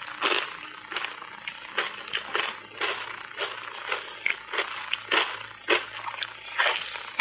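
Close-miked crunching and crackling of refrozen, powder-coated matcha ice being bitten and chewed, in irregular sharp crunches a few times a second.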